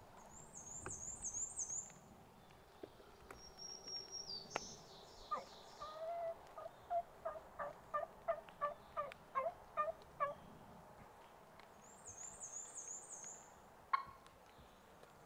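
Wild turkey hen yelping: a run of about a dozen evenly spaced yelps, a little over two a second, for about five seconds. A songbird's high, quick trilled phrase comes before and after it, and one sharp snap sounds near the end.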